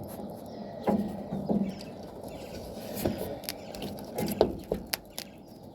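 Irregular clicks, taps and scraping of a plastic tube being worked onto a swamp cooler water pump's outlet fitting.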